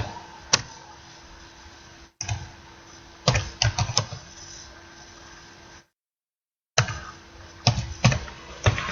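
Computer keyboard keys tapped in short, uneven runs of a few keystrokes at a time, over a faint steady hum. The sound cuts out completely for about a second partway through.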